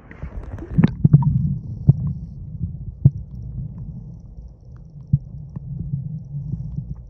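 A phone microphone going under water: the above-water noise cuts off within the first second, leaving a muffled low rumble with scattered knocks and clicks.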